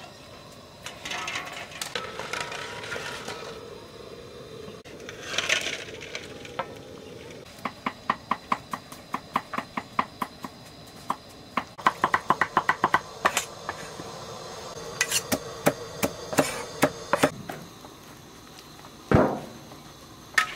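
Knife chopping on a wooden cutting board in runs of sharp strokes, with a quicker burst of chopping in the middle and one heavier thud near the end.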